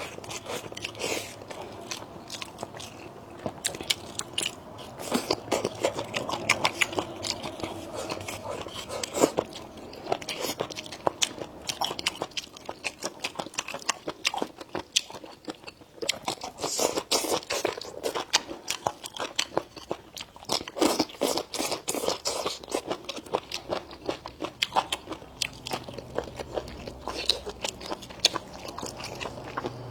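Close-miked eating: a person biting and chewing crunchy food, with many sharp crunches and wet chewing sounds coming irregularly.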